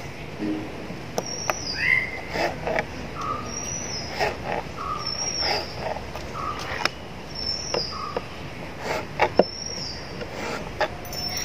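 Knife cutting a peeled potato into fry strips: irregular sharp taps of the blade through the potato onto the board. Behind them, a bird repeats a short high chirp with a lower note about once a second.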